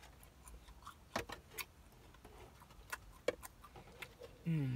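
Close-up chewing of walnut shrimp: scattered wet mouth clicks and smacks, a few sharper ones between about one and three and a half seconds in. Near the end a hummed "mm" of approval begins.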